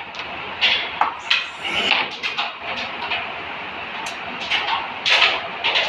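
Carrom striker and wooden carrom men clicking sharply as shots are played on the board, several separate clicks and knocks, some in quick succession.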